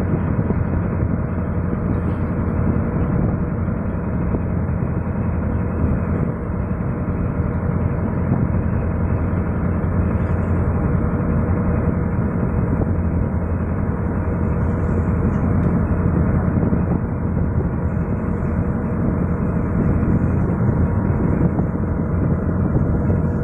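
A small fishing boat's engine running steadily while underway, with a constant low drone.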